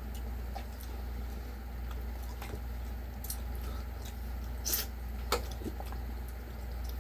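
Chewing crispy fried chicken: scattered small crunchy clicks, with two sharper ones a little past halfway, over a steady low hum.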